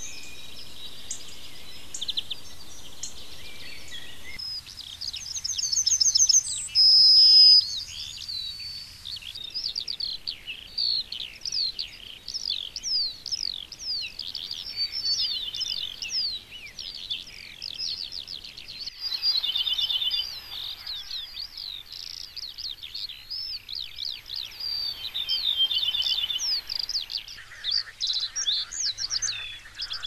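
Wild songbirds singing, several different songs in turn: high, rapid chirps and trills, with many quick down-slurred notes through the middle and one loud high whistled note about seven seconds in.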